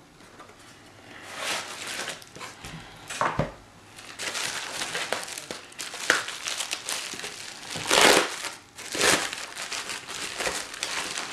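Plastic bubble wrap crinkling and rustling in irregular bursts as it is pulled off a sheathed knife, loudest about eight seconds in, with a dull knock about three seconds in.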